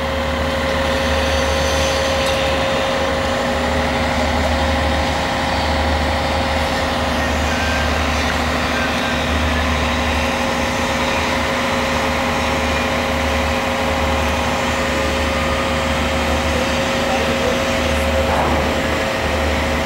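Heavy crawler crane's diesel engine running steadily, with a constant pitched whine over a low rumble.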